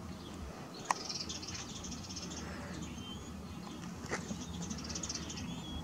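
Quiet outdoor background: a low steady hum under a fluttering high hiss, with a couple of faint short bird chirps. A sharp click comes about a second in and a lighter one about four seconds in.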